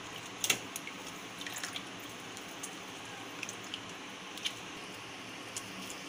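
Lime juice dripping into a bowl of water as a whole lime is squeezed by hand: a few scattered drips and small squishes, the most distinct about half a second in.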